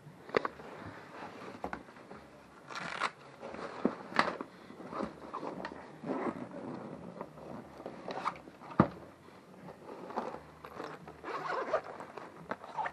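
Irregular rustling, scraping and crunching close to the microphone, with scattered sharp clicks and a loud knock nearly nine seconds in, typical of a body-worn camera rubbing against clothing as the wearer moves.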